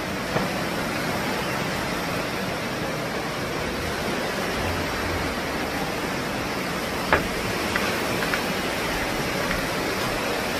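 Steady rushing noise of wind blowing across the microphone on an open, high viewing deck, with a short tap just after the start and a sharper one about seven seconds in.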